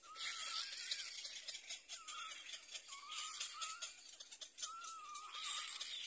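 Little black cormorant chicks begging at the nest: a run of hissing calls, each with a thin wavering whistle, repeating about once a second.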